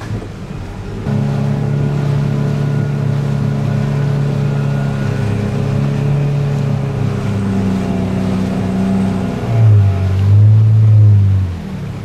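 Motorboat engine running steadily after growing louder about a second in; near the end its note shifts and gets louder for a couple of seconds, then drops back.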